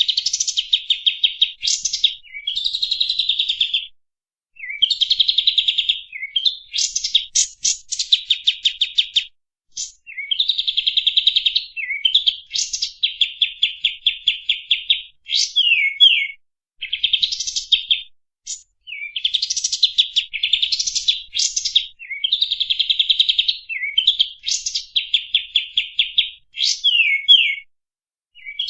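Pied triller (kapas tembak) singing: rapid, buzzy trilled phrases repeated back to back, each about a second long, mixed with short sharp sweeping notes.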